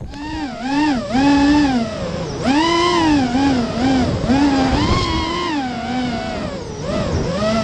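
Racing quadcopter's four EMAX RS2205 2300KV brushless motors and propellers whining, starting abruptly as the quad throttles up and then rising and falling in pitch with each throttle change, recorded on board the quad.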